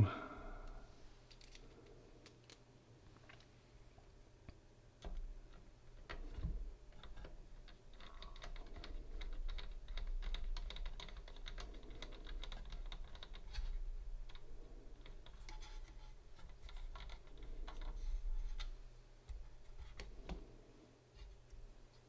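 Light clicks and tapping from hands handling an open mini PC's case and internal cables. The clicks come in a loose, irregular run, busiest through the middle, over a low rumble of handling noise.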